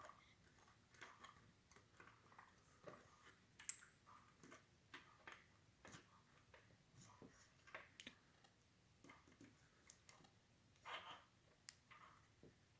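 Faint, irregular small clicks and taps from a brass padlock core, its pins and a plug follower being handled during disassembly.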